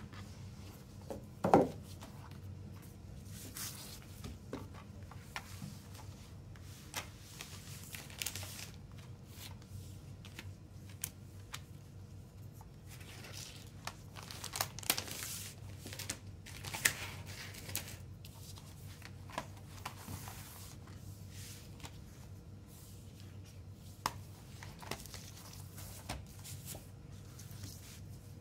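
Hands handling a CD box set's packaging: a clear plastic sleeve crinkling, cardboard and paper rustling and sliding, and scattered light knocks, with one louder knock about a second and a half in.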